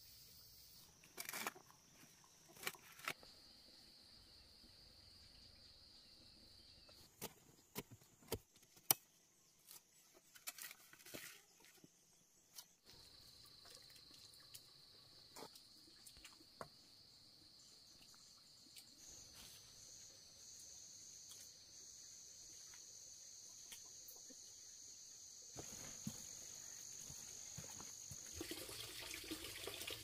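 Faint insects trilling in a steady high tone that drops out for several seconds and returns, a second higher tone joining it for a while. Scattered light clicks and knocks fall through the first half, and a brief rush of water comes near the end.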